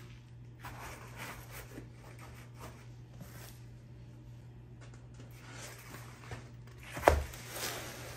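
Cardboard grass trays being handled and shifted on a wooden floor: rustling and scraping, with one sharp knock about seven seconds in, the loudest sound, as a tray is set down. A steady low hum runs underneath.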